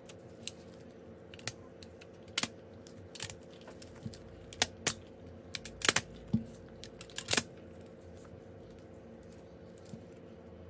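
Irregular sharp clicks and taps of small tools and phone parts being handled during a phone repair, thinning out after about seven seconds, over a steady low hum.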